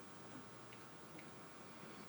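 Near silence: room tone with three or four faint, small ticks.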